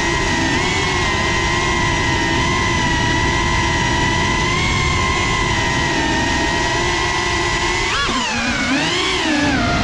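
Whine of a small FPV cinewhoop drone's motors and propellers, holding a steady pitch through smooth forward flight. About eight seconds in the pitch drops and climbs sharply twice as the throttle changes, then settles again.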